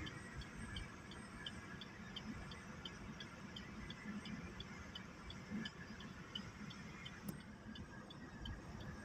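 Faint background: short high chirps repeating evenly about three times a second, over a low, uneven rumble.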